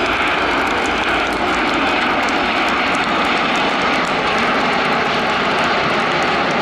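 Jet noise from a close formation of Aermacchi MB-339 jet trainers passing overhead: a loud, steady rushing sound that holds even throughout.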